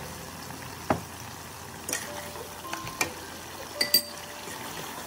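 Wooden spatula and metal spoon stirring chunks of duck meat in an aluminium pot over a steady sizzle, with a few sharp clinks and knocks against the pot, two in quick succession near the end.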